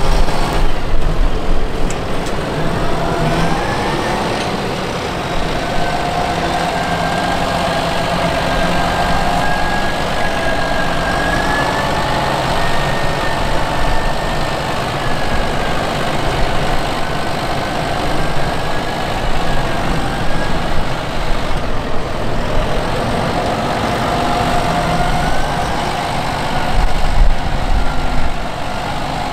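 Fendt 724 Vario tractor and trailed Grimme SE 150-60 potato harvester at work: a steady run of engine and machinery noise with a high whine that rises a couple of seconds in, holds, drops away about two-thirds through and rises again near the end.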